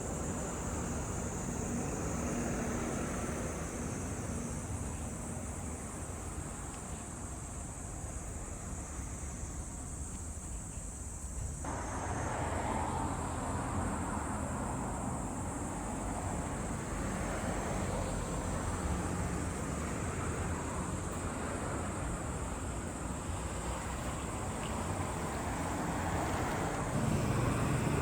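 Toyota Altezza RS200's 3S-GE four-cylinder engine running steadily with a low hum. The sound changes abruptly about twelve seconds in, and the low end grows louder near the end.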